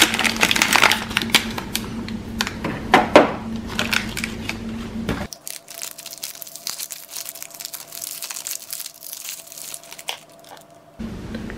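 Plastic printhead packaging crinkling and being torn open by hand. It is dense and loudest for the first five seconds, then fainter scattered crinkles follow as the printhead is pulled out.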